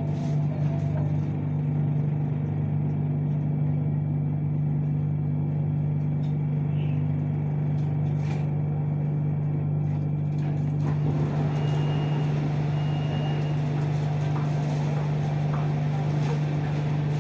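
Inside a BTS Skytrain car standing at a station platform: the train's equipment gives a steady low hum. From about eleven seconds in, a rushing noise grows louder, and a thin high tone sounds for about two seconds.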